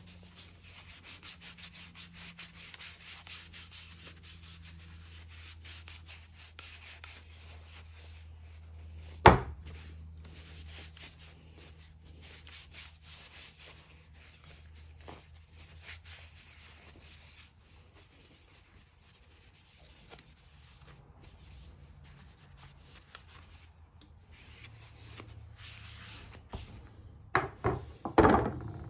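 Shop cloth rubbing over a restored drawknife's steel blade and wooden handles in a steady scratchy rustle, with one sharp knock about a third of the way in. Near the end come several loud knocks as the drawknife is set down on the bench.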